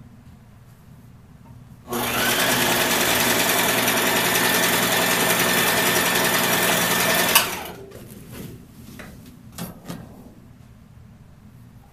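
Electric household sewing machine running steadily for about five seconds, starting about two seconds in with a quick rise in speed and then stopping abruptly. A few faint clicks follow.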